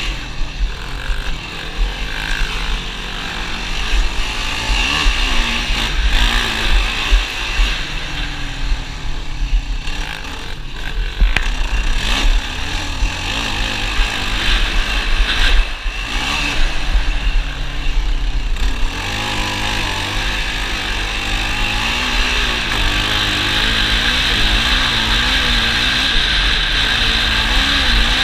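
ATV engine running under way, its pitch rising and falling with the throttle; the note settles into a steadier, louder run about two-thirds of the way through.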